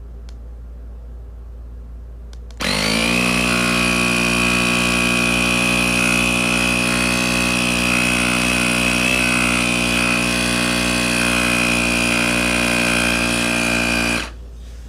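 Cordless tire inflator pump running: its small motor and compressor spin up about two and a half seconds in, run with a steady high-pitched whine, then cut off shortly before the end.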